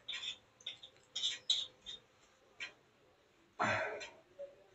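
A spoon clicking and tapping against the pan as cooked pasta is spooned out for serving: a string of light, irregular clicks, then one louder, longer noise about three and a half seconds in.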